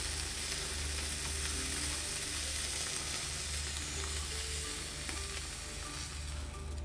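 Thin slices of marinated beef sizzling as they sear directly on hot Binchotan charcoal, a steady hiss.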